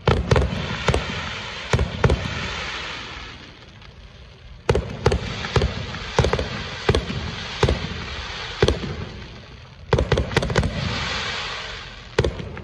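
Aerial firework shells bursting overhead: a run of sharp bangs, some in quick clusters of two to four, with a hiss trailing the bursts. There is a short lull about four seconds in, then a steadier string of single bangs and a last cluster near the end.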